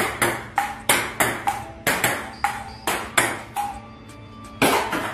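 Table-tennis ball bouncing on a Joola table and off a paddle: a quick run of sharp pings, about two a second, each with a short ringing tone.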